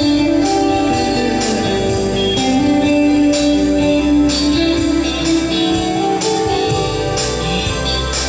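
Guitar playing sustained, melodic notes over a backing track with a steady beat and bass.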